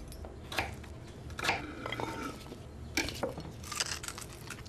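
Fries being slid off a wooden board onto a plate, heard as a scatter of light clicks, taps and scrapes.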